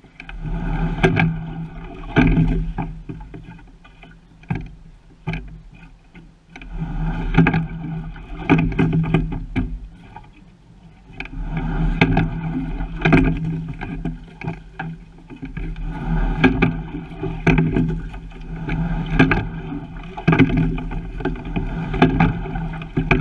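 Single rowing shell being sculled: sharp clicks and knocks from the oars and rigging, over water rushing along the hull, the sound swelling and fading with each stroke.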